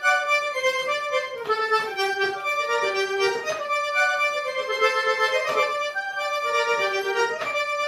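Accordion playing a forró melody in quick, stepping notes: the instrumental introduction before the singing comes in.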